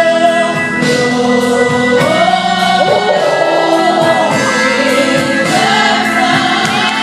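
Live gospel praise singing: a youth praise team's voices over held instrumental chords, with a wavering sung melody line coming in about two seconds in.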